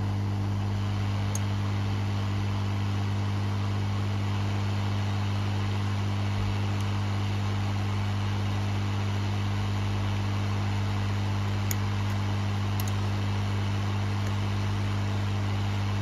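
Hot air rework station blowing steadily onto a chip on an ECU circuit board: a steady low hum under an even rush of air while the solder under the chip is heated to melting.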